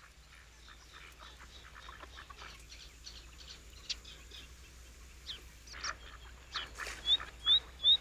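Marsh bird sounds: faint, scattered duck calls, then from about seven seconds in a small bird repeating a short rising chirp about five times in two seconds, the loudest sound.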